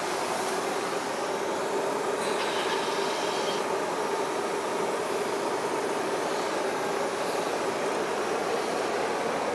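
Harley-Davidson 1340 Evolution V-twin engine running, heard close up as a steady, even noise with no clear beat.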